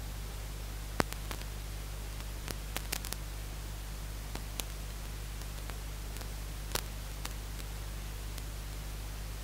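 Steady static hiss with a low hum, broken by scattered sharp clicks and crackles, the loudest about a second in. This is recording noise from the camera or microphone, with no match sound standing out above it.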